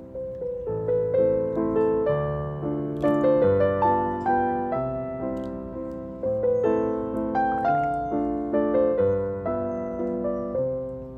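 Background piano music: a gentle melody of struck notes that each fade, over a low bass line.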